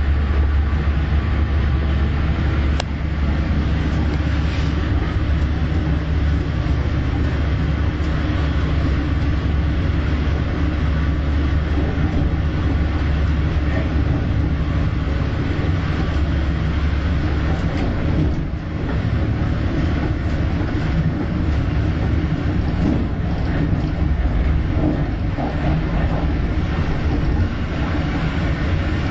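Steady running noise inside an Intercity passenger coach travelling at speed: a deep rolling rumble of wheels on rails with a hiss over it. It goes briefly quieter about two thirds of the way through.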